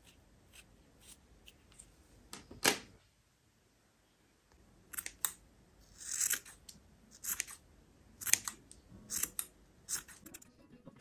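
Scissors snipping through thick cotton macrame yarn in a series of short, sharp cuts. Most of them fall in the second half, with one loud snip near three seconds in.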